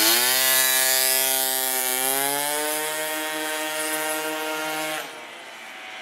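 Two-stroke engine of a 72cc Polini-kitted Honda Elite (DIO AF16) scooter with an Arrow expansion-chamber exhaust, running at high, steady revs as the scooter rides off. Its pitch drops over the first second, then holds with a slight rise, and the sound fades sharply about five seconds in.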